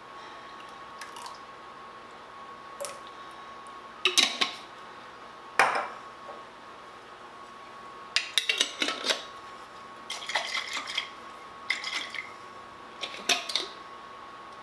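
Glass sauce jar clinking and knocking against the rim of a glass mixing bowl as marinara is shaken out of it. There are two single knocks about four and six seconds in, the second the loudest, then clusters of quick clinks through the second half.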